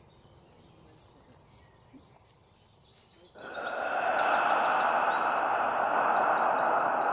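Birds chirping, with runs of quick falling chirps repeated several times. About three and a half seconds in, a loud steady rushing noise swells up and holds, drowning out everything else.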